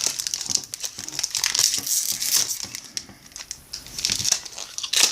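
Foil wrapper of a Topps baseball card pack crinkling with dense irregular crackles as it is handled and opened.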